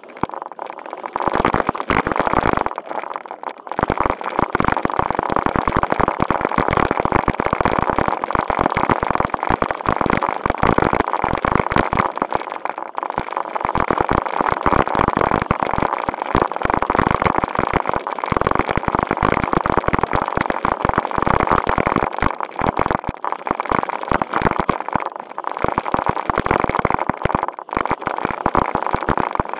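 A JJRC Q76 RC climbing car driving over gravel and rough pavement, heard from a camera mounted on the car: constant crackling and rattling from the tyres and chassis on the stones, over a steady whine from its electric drive. The noise dips briefly about three seconds in.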